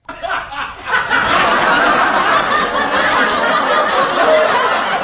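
Loud laughter, starting suddenly in short pulses and then running on dense and steady.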